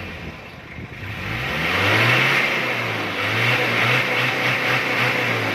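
Mitsubishi Adventure's diesel engine revved up from a lower speed about a second in and held at high revs, sagging briefly and rising again.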